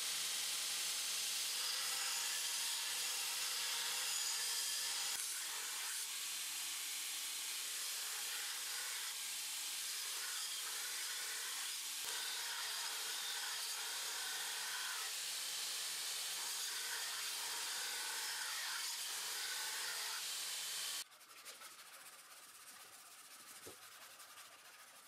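Belt grinder's abrasive belt grinding the bevel of a steel knife blade, a steady hiss. Near the end it gives way to the quieter scratching of hand sanding on the blade.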